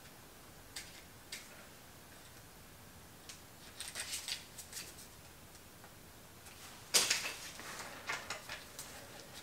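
Faint, scattered metallic clicks and taps of a keysert thread insert and its installation tool against the aluminium cylinder head as the insert is dry-fitted into a freshly tapped exhaust manifold bolt hole. A louder, sharper clack comes about seven seconds in, followed by a few lighter ticks.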